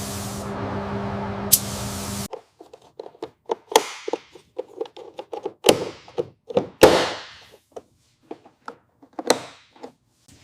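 A steady spraying hiss with a low hum that cuts off suddenly about two seconds in, followed by an irregular run of workshop taps and knocks, a few louder ones ringing briefly like tools striking metal.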